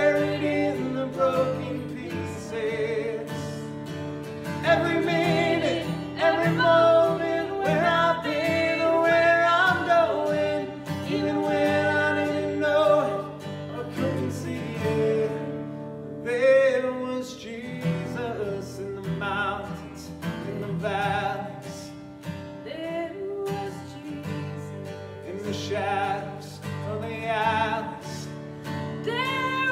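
A woman and a man singing a gospel worship song together, accompanied by an acoustic guitar.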